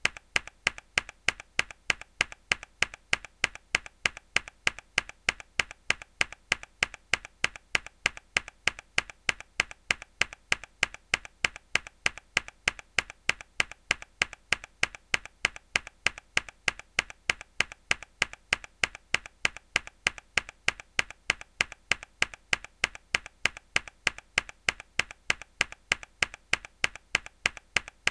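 A single hard key press on a mechanical keyboard, looped: sharp, even clicks repeating about three to four times a second without change.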